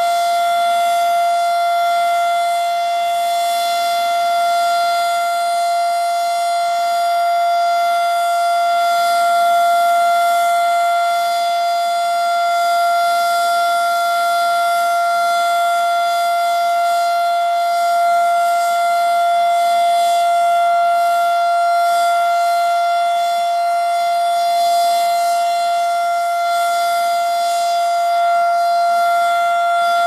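Federal Signal Model 7 outdoor warning siren sounding its steady alert signal during a test: one continuous tone held at an unchanging pitch.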